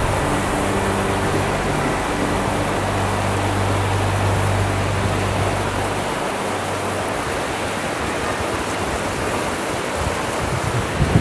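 River rapids rushing steadily, a loud, even roar of whitewater. Under it, a low steady hum, like an engine, runs until about halfway through and then stops.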